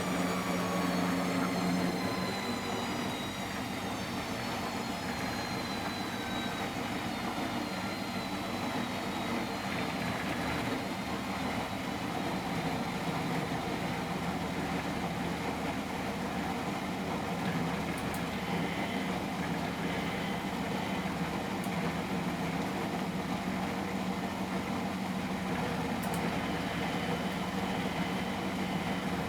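1993 Miele Professional WS 5426 washing machine running a boil wash. A motor whine falls in pitch over the first few seconds as the drum slows, then the machine runs on with a steady hum.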